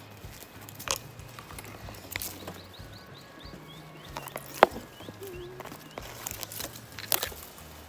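Irregular footsteps and scrapes on rocky ground, with one sharp knock about halfway through. A small bird chirps a quick run of high notes about a third of the way in.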